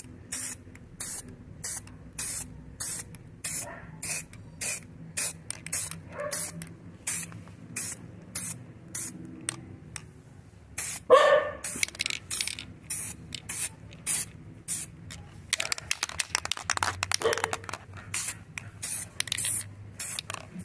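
Aerosol can of black spray paint hissing in quick short spurts, about two a second, with one longer continuous spray about three quarters of the way through. A brief louder sound comes about halfway.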